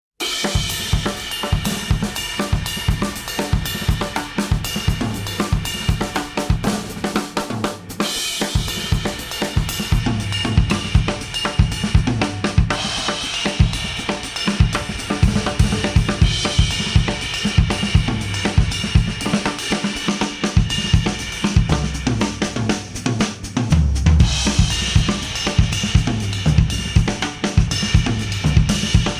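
Instrumental music track with a full drum kit (kick, snare, hi-hat and cymbals) driving a steady beat, played back through Apple earbuds and picked up by an artificial-ear measurement microphone. There is a brief drop about eight seconds in.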